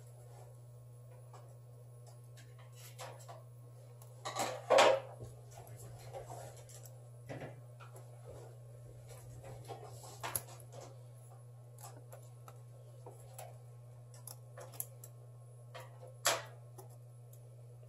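Small hand tools clicking and scraping against a phone's broken screen glass as the shattered glass is picked away, with a louder scrape about five seconds in. A steady low hum runs underneath.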